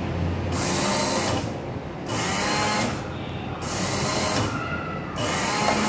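Robot Baker automatic baking machine running, with four evenly spaced bursts of mechanical whirring, each just under a second long and about a second and a half apart.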